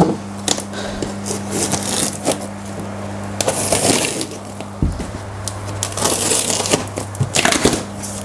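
Packing tape being cut and torn off a polystyrene foam shipping box, with scrapes and creaks of the foam as the lid is worked loose, in repeated short bursts over a steady low hum.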